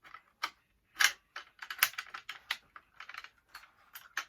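Metal parts of a 1953 Tula SKS rifle's action clicking and clacking irregularly as the bolt carrier is worked loose during field stripping, the sharpest clacks about a second in and just before two seconds.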